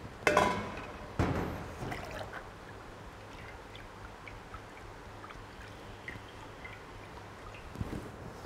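Rinse water splashing through soaked soybeans in a stainless-steel mesh strainer, twice near the start, then faint dripping and trickling.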